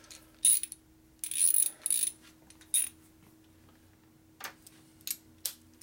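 Small metal tools and parts clinking as they are picked up and set down on a steel work table: a few sharp, ringing clinks, with a longer rattle between about one and two seconds in. A faint steady hum runs underneath.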